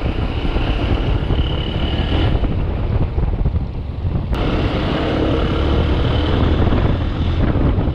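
Wind buffeting a body-mounted camera's microphone on a moving motorcycle, with the engine and road noise underneath. The sound shifts abruptly near the middle.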